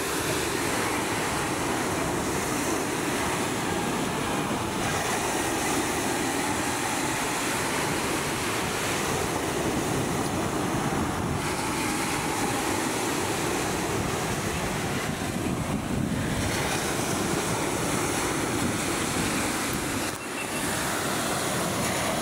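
Surf breaking and washing up a beach in a steady rush, with wind noise on the microphone.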